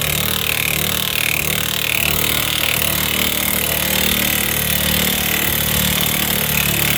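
Impact wrench hammering steadily on a front-wheel-drive car's 1 3/8 in. axle nut to break it loose. The nut is a lock-nut design.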